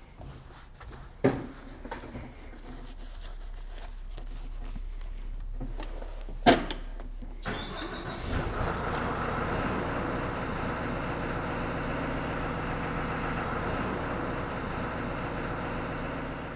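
Two sharp knocks, the second the louder. About eight seconds in, the Dynapac CO4200 VI tandem roller's diesel engine starts with a brief rising whine and then runs steadily while the machine moves to turn its drum.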